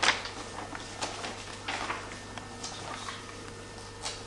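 Stiff photo-album pages turned by hand: paper rustling and flapping in several short bursts, the loudest right at the start.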